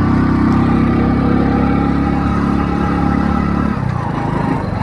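100cc single-cylinder Hero Passion Pro motorcycle engine running steadily under throttle, then its note drops and turns rougher near the end.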